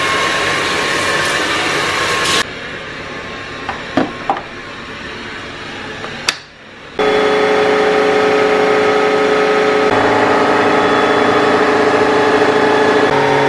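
Tap water running into the clean-water tank of an ILIFE W90 wet-dry floor vacuum for a couple of seconds, then a few clicks. About seven seconds in, the vacuum's motor starts and runs steadily with a hum of several steady tones.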